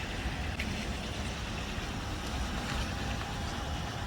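Steady low rumble and hiss of a car, heard from inside the cabin, with a few faint ticks.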